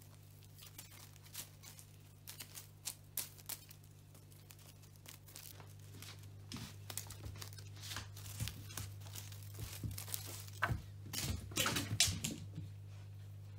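Crinkly cat wand toy rustling and crackling as it is waved and shaken, with light taps. The crackling is sparse at first, gets busier and louder, and stops near the end. A steady low hum runs underneath.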